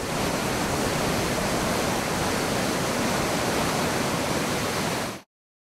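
Whetstone Brook in flood, a brown torrent rushing through its channel: a loud, steady roar of turbulent water that cuts off suddenly near the end.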